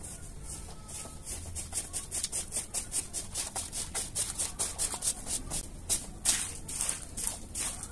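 Push broom scrubbing a soaked, muddy rug: quick back-and-forth wet scrubbing strokes, about five a second, growing stronger after the first second.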